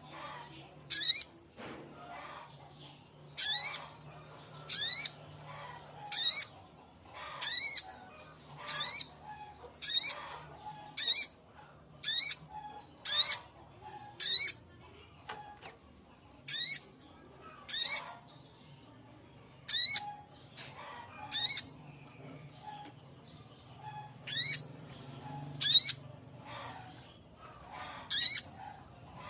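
Male sogok ontong (little spiderhunter) calling: sharp, high single notes, each a quick downward slur, repeated about once every second or so with a few longer pauses. This is the male's call to a female.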